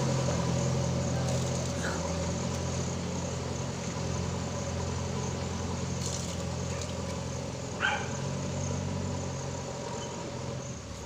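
JCB backhoe loader's diesel engine running steadily, with a single short high-pitched squeak about eight seconds in.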